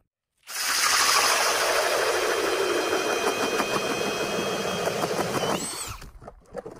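Cordless drill spinning an Eskimo pistol-bit ice auger as it bores through lake ice: a steady motor whine over the grinding of the bit, starting about half a second in. About five and a half seconds in, the drill lets off and winds down.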